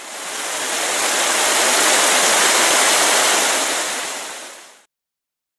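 Steady rushing noise that swells up, holds, and fades away smoothly after nearly five seconds.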